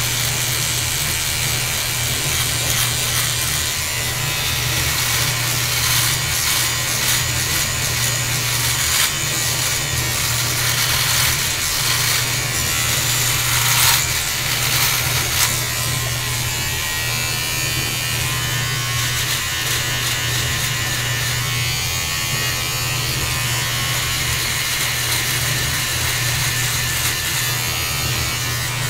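Handheld electric beard trimmer buzzing with a steady hum, its blades crackling as they cut beard hair while it is run along the cheek and jaw.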